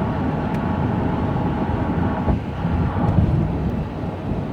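Steady road and engine noise heard from inside a moving car's cabin, with a small bump a little over two seconds in.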